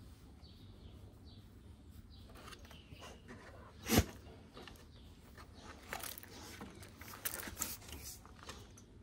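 Birds chirping faintly in the background, a single sharp knock about four seconds in, then a run of clicks and scuffling in the second half as two Kangal dogs start to wrestle.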